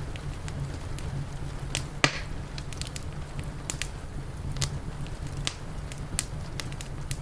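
Wood fire crackling, with scattered sharp pops and one louder pop about two seconds in, over a low steady rumble.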